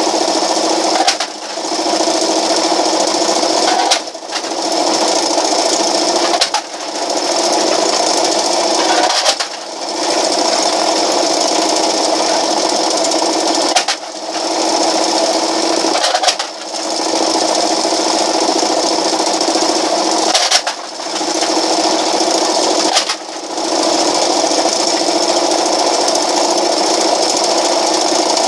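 Homemade four-solid-wheel pop can crusher running steadily, its motor and belt drive turning through a 7-inch motor pulley. About eight times a sharp crunch sounds as a hand-flattened pop can is drawn between the wheels and crushed, and each time the running sound dips and then builds back up.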